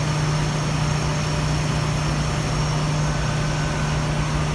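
Steady din of a ship's engine-room machinery running, with a constant low hum under an even wash of mechanical noise.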